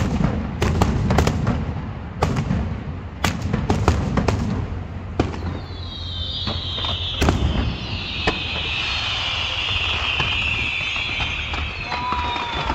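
Aerial fireworks going off: a rapid string of sharp bangs and booms, then a long hissing crackle that slowly falls in pitch through the second half.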